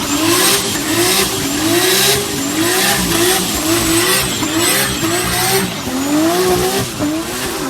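Tuned turbocharged car engine revved in quick repeated throttle blips, its pitch rising and dropping about twice a second. Each blip brings a surge of hiss, and a thin high whistle runs over the top.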